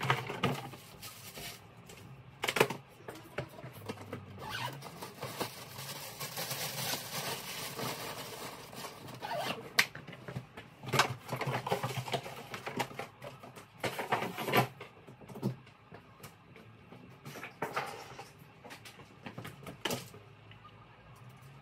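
Packing noises: a cardboard box and plastic wrapping rustling and being handled, with scattered sharp knocks and clatters as things are put into a suitcase.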